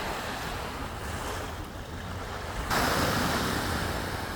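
Sea waves washing onto the beach, with wind buffeting the microphone as a low rumble. About two-thirds of the way in the sound suddenly swells louder and stays up.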